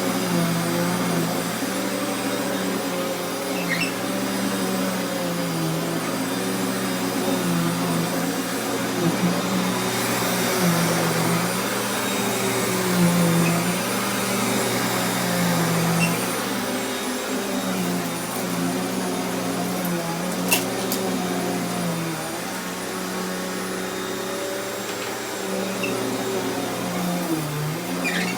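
1996 Sharp Twin Energy 9-amp upright vacuum cleaner running steadily, its motor hum wavering gently up and down in pitch, with a couple of brief clicks.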